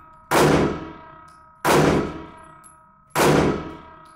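Three shots from a 9mm Glock 19 Gen 5 pistol fired in an indoor range booth, about one and a half seconds apart. Each shot leaves a short metallic ring.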